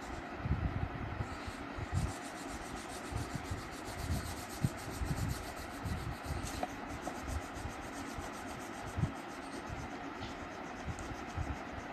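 Colouring on paper: a colour being rubbed back and forth in quick strokes, with irregular soft low thumps of the hand and paper.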